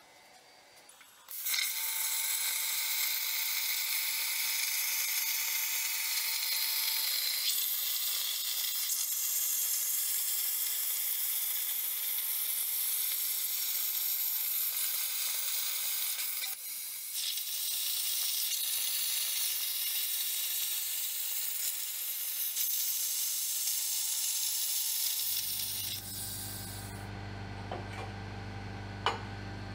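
Air plasma cutter (Razorcut 45CNC on a CNC plasma table) cutting steel plate: a loud steady hiss that starts about a second and a half in, breaks off briefly around the middle, resumes, then stops near the end. After it comes a low hum and a few light clinks of the cut steel pieces being handled.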